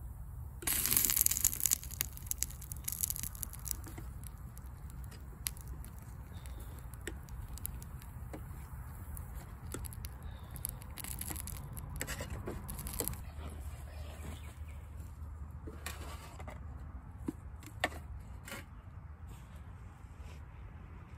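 Fork scraping and stirring tomato sauce in a metal frying pan over a small, low wood campfire, with scattered crackles and pops from the fire. A louder burst of noise about a second in, over a steady low rumble.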